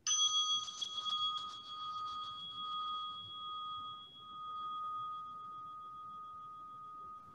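A bell struck once, ringing with a clear high tone. Its upper overtones fade within a few seconds while the main tone lingers, swelling and fading slowly. It is rung to mark the start of worship.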